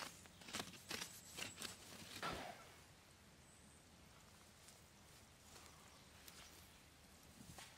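Hands scuffing and patting soil and forest-floor litter over a burnt-out campfire patch: a few short rustling scrapes in the first couple of seconds, then quiet, with one more faint scuff near the end.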